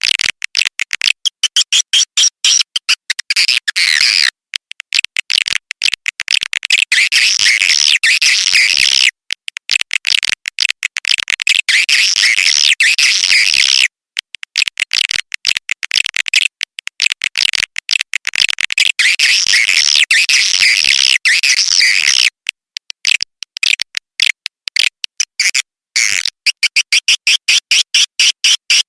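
Swiftlet lure call track: dense, high-pitched twittering chirps of swiftlets in long bursts broken by short gaps, turning near the end into a fast, even train of about four to five chirps a second. Such call sounds are played from swiftlet houses to draw swiftlets in to roost and nest.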